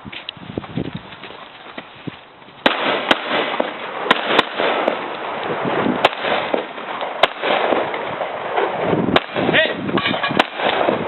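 Glock pistol fired in a timed drill: about eight sharp single shots, unevenly spaced over several seconds, starting a little over two seconds in, over a steady background noise.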